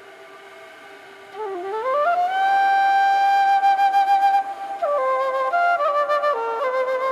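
Slow background music carried by one melodic instrument. A soft low note rises in a quick run about a second and a half in to a long, loud held note that wavers slightly, followed by a few shorter notes stepping up and down.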